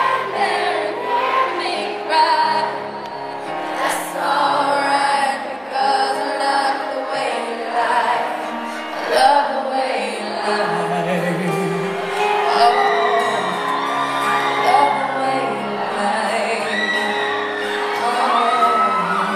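A woman singing live into a microphone over strummed acoustic guitars in a large hall, with whoops and cheers from the crowd.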